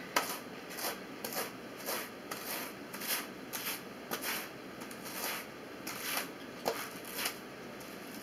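Wool being hand carded: the wire teeth of one hand carder brushed repeatedly across the other, making short raspy strokes about two a second.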